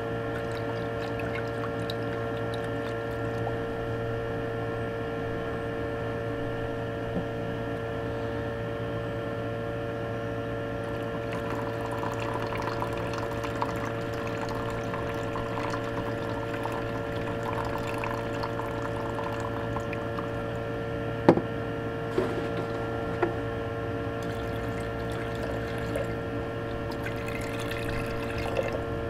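Water being poured: rinse water is tipped off into a plastic bucket, then distilled water runs from a plastic jug into a glass beaker of silver powder. A steady hum runs underneath, and there is one sharp knock about two-thirds of the way through.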